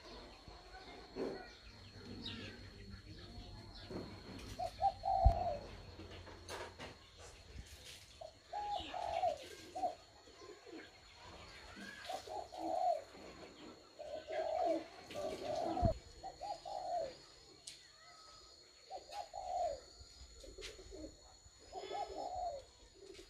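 Pigeons cooing, a run of low coos repeated every second or few, with faint small-bird chirps and a steady thin high whine behind them. A sharp knock about five seconds in and another a little past the middle.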